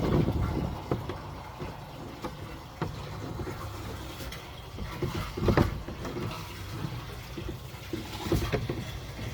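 Water running into a poultry waterer as it is refilled, with a few knocks from handling the container; the loudest knock is about five and a half seconds in.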